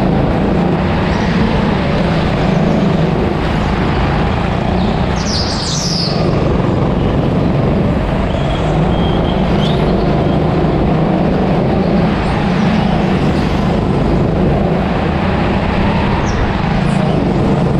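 Rental go-kart engine running under throttle, heard onboard with a constant noisy rush. The engine note sags twice and picks up again, as the driver lifts off for corners and accelerates out.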